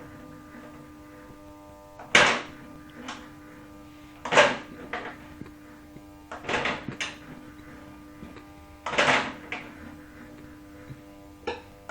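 Electric fan motor humming steadily while it fails to get going. Loud rattling knocks come about every two seconds, five in all.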